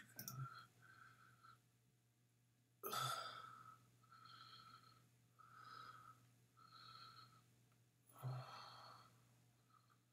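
Faint breathing close to the microphone, with two louder exhalations, one about three seconds in and one near the end.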